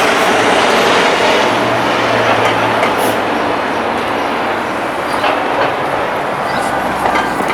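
Train running with a loud, steady rumble and rattle of wheels on rails, easing slightly toward the end.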